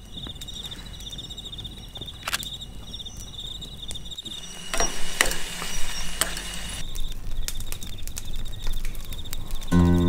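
Insects trilling steadily in a high, pulsing tone while a wood campfire crackles and pops, the crackling loudest a little past the middle. Music comes in right at the end.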